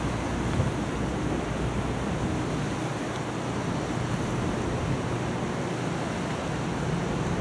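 Steady harbour-side noise of wind and water, with a faint low hum underneath.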